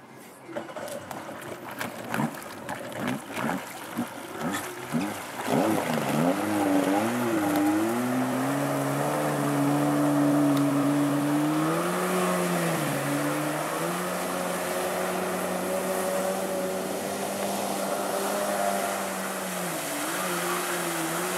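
A 700cc two-seat jet ski's engine starts about half a second in and revs up and down in several short blips as it pulls away. It then runs steady at speed, easing off briefly twice, with spray hissing off the hull.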